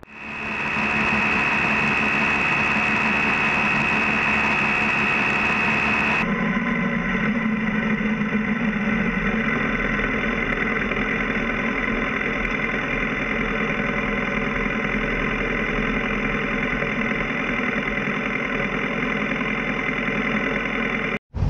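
BMW F650 GS motorcycle engine running steadily as the bike rolls slowly, heard close up from a camera mounted on the bike. A high steady whine sits over it for about the first six seconds and stops abruptly.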